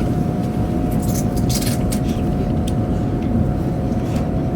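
Cabin noise of a Chinese high-speed train running at speed: a steady low rumble with a faint steady hum above it and a few scattered light clicks.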